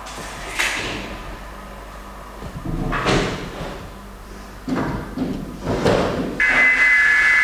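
Several separate knocks and thumps indoors, like a door being bumped and closed. Near the end, a loud steady high-pitched tone sets in and holds.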